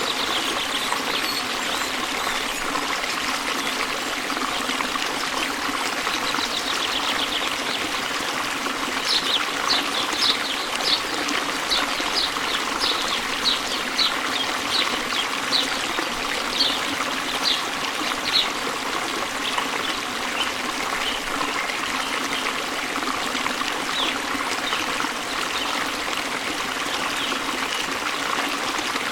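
Steady rushing of a waterfall. Over it a bird chirps in a run of short high notes, about two a second, from roughly a third of the way in to past halfway, then only now and then.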